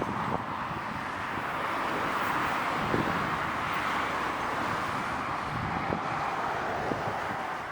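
Steady road traffic noise from vehicles passing on a busy road, a broad rushing of tyres and engines that swells slightly in the middle, with some wind on the microphone.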